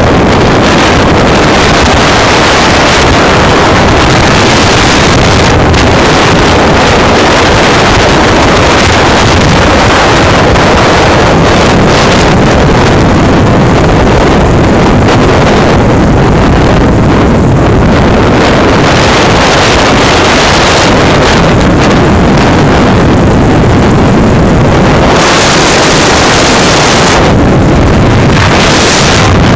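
Loud, constant wind rush buffeting the microphone of a vehicle moving along a road at speed, with a low rumble underneath.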